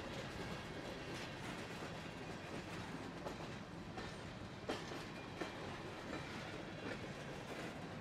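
Covered hopper cars of a freight train rolling past: a steady rumble of steel wheels on rail, with irregular sharp clacks from the wheels, the loudest just past halfway.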